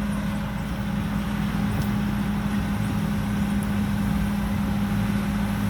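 Thai Seng Super Jiw combine harvester's four-cylinder turbo engine running steadily, a constant drone with an even low hum.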